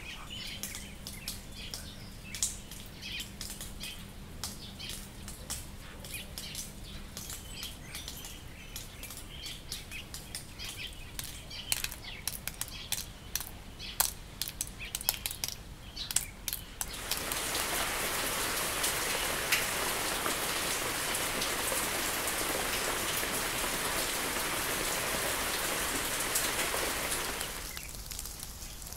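Scattered short bird chirps over a quiet garden background. From just past the middle, a steady, even hiss takes over and fades out shortly before the end.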